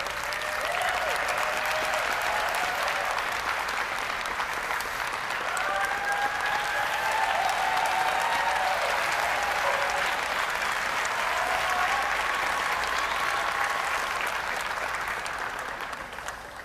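Arena audience applauding steadily, with voices calling and cheering over the clapping; the applause dies down near the end.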